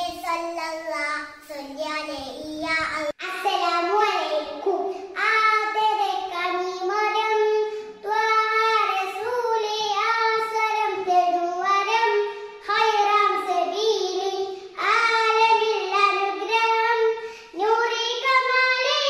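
Young girls singing a Malayalam devotional song in praise of the Prophet, unaccompanied: one child's sung voice with long held, wavering notes. About three seconds in it breaks off abruptly and a second girl's voice takes up the song.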